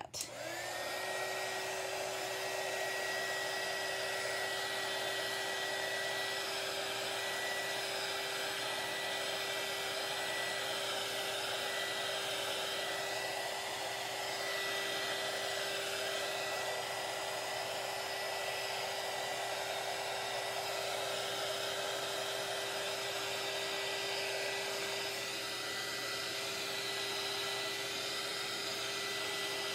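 Heat gun coming on within the first second and then running steadily: the rush of its blown air over a steady motor whine. It is being passed over freshly poured epoxy on tumblers to pop surface bubbles.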